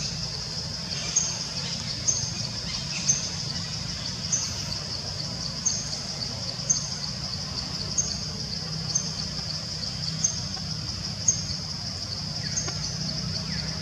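Steady high-pitched drone of forest insects, with a short high chirp repeating about once a second over it and a low steady hum underneath.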